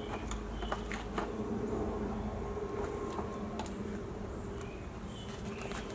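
A steady low buzzing hum, with a few light clicks and rattles of loose wiring being handled in a plastic crate.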